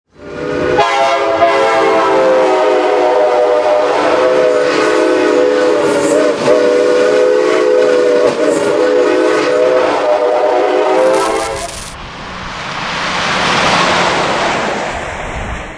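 Commuter train's multi-chime air horn sounding one long chord of about eleven seconds, cutting off near 11.5 s. It is followed by a rushing noise that swells and fades.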